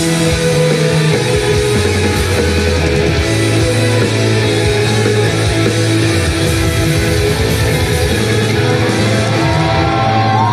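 Rock band playing live and loud: electric guitar over steady held bass notes and drums, with no singing. Near the end a few whoops from the crowd rise over the music.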